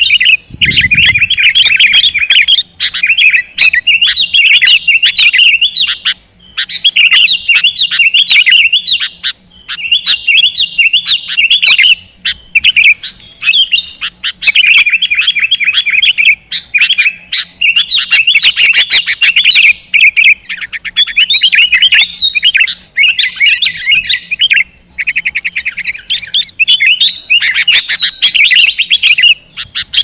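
Sooty-headed bulbul (kutilang) in full song: loud, rapid chattering phrases of one to two seconds, one after another with brief breaks between them.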